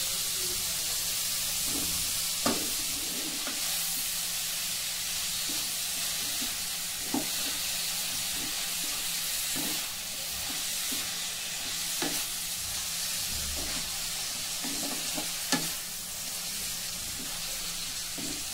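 Shredded cabbage, onion, carrot and bell pepper sizzling in oil in a steel kadhai on low heat, a steady hiss. A wooden spatula stirs them, scraping and knocking against the pan a few times, sharpest near the end.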